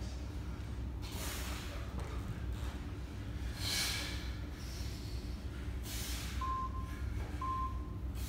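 A man's hard breaths of effort, a long hissing exhale every two to three seconds, while he holds a kettlebell overhead lying on a mat. Near the end, three short electronic beeps about a second apart, over a steady low room hum.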